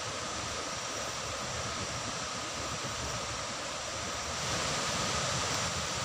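Steady rushing noise of a waterfall's falling water heard from a distance, rising a little and growing brighter about four seconds in.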